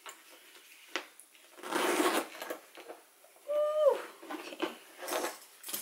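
Rustling and handling of a folded Louis Vuitton Keepall duffel bag's coated canvas as it is unfolded and lifted out by its leather handles, in a few separate bursts. About three and a half seconds in, a brief hummed 'mm' is held and then drops in pitch.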